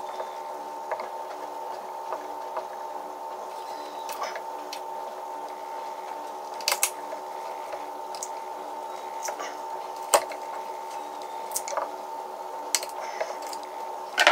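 Scattered sharp metal clicks and light scrapes of a screwdriver or rod prying the cut wood plug out of a drill's hole saw, a few spread over several seconds. A steady hum runs underneath throughout.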